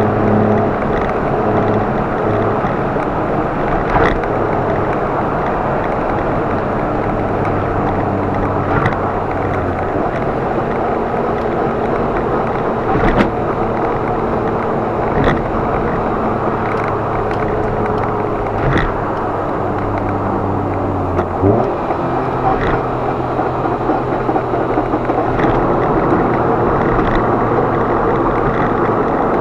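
Car driving at speed: a steady engine hum over tyre and road noise, with single sharp knocks every few seconds. The engine note changes with a brief glide about 21 seconds in.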